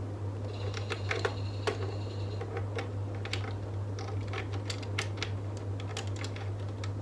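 Irregular clicks and light knocks of plastic tripod and ring-light parts being handled and fitted together, over a steady low hum.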